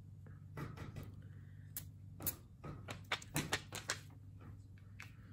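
A perfume bottle and paper test strip being handled: a run of sharp, irregular clicks and taps, bunched most thickly in the middle.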